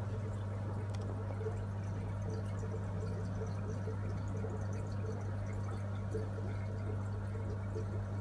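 Aquarium water bubbling and trickling steadily over a constant low hum.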